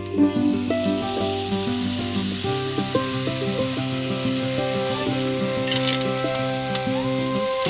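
Potatoes and peppers sizzling in a cast iron skillet over hot coals, a steady frying hiss, with a few short clicks about six seconds in. Music plays along with it.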